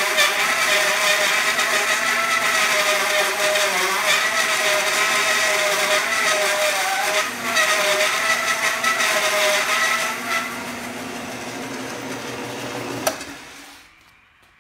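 Homemade bandsaw mill, a 3-teeth-per-inch band blade on 12-inch wheels belt-driven by a 1/3 hp HVAC blower motor, sawing slowly through a wooden block with a wavering whine. About ten seconds in it drops to a quieter steady hum, then a click near the end and the machine winds down to quiet.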